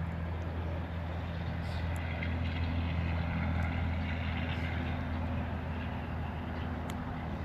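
Steady low engine hum, like a vehicle idling nearby, holding an even pitch throughout, with a few faint small clicks.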